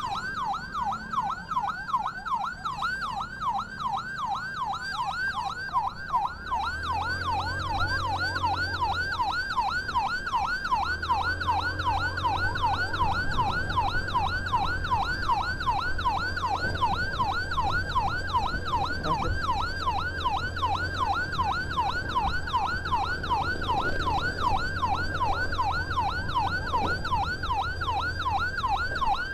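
Ambulance's electronic siren on a fast yelp, each sweep rising and dropping back, about three to four times a second. About six seconds in, a low steady vehicle drone comes in underneath.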